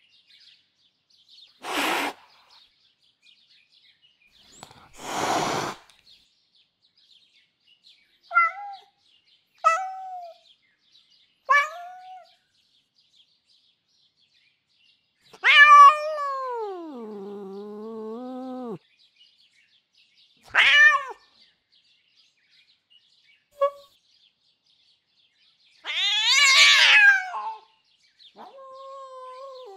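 A domestic cat's vocalizations, one after another with pauses between them: two hisses, three short anxious meows, a shriek that falls into a low growl, then short screeches and a squeak, ending in a loud angry screech.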